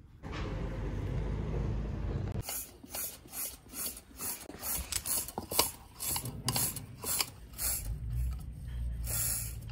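A low rumble for about the first two seconds, then rhythmic rasping strokes, about two a second, that run on for several seconds.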